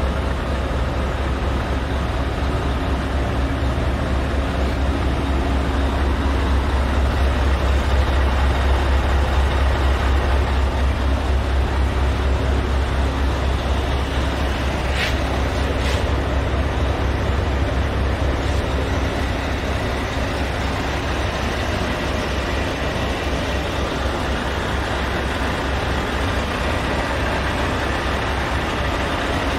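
Scania S730's 16-litre V8 diesel idling steadily, a low, even, pulsing hum, with two faint clicks about halfway through.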